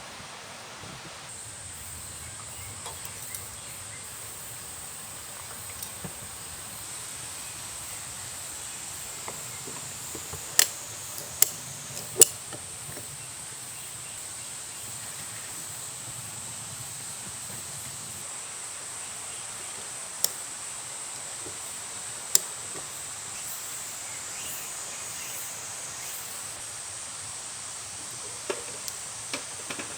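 Insects chirring in the autumn forest as one steady high-pitched drone. A few sharp clicks or knocks cut through it, three close together about ten to twelve seconds in and two more around twenty seconds.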